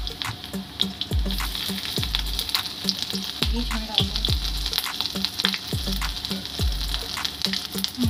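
Oil sizzling and crackling in an iron kadai as grated ginger fries in it. Under it runs background music with a steady bass beat about once a second.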